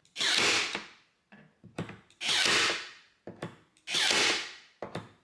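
Parkside PAT 4 D5 cordless electric stapler firing staples into plywood three times, roughly every two seconds. Each shot is a sudden burst of tool noise lasting under a second, with small clicks between shots.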